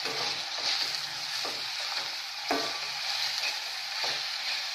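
Chopped vegetables sizzling in oil in a stainless steel pan as a perforated steel spatula stirs them, scraping and knocking against the pan several times.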